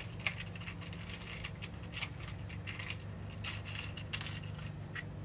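Scattered faint light clicks and taps from wiring and multimeter test leads being handled, over a steady low hum.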